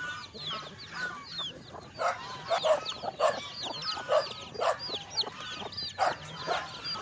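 A feeding flock of ducks and chickens calling: constant high peeping from ducklings and chicks, with a string of louder clucks and quacks from about two seconds in.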